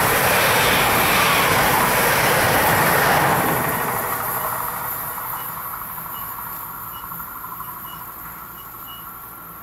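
A train rolling past on the line. The loud rolling noise stays level for about three seconds, then fades steadily as the train moves away.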